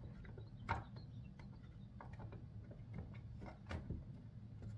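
Light clicks and taps of a RadioShack 12-259 weather radio's plastic casing being handled and pressed into place, a little louder twice, over a faint low hum.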